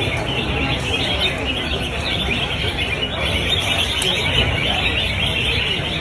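Caged red-whiskered bulbuls singing together in a dense, unbroken chorus of quick chirps and whistled phrases, over a low crowd murmur.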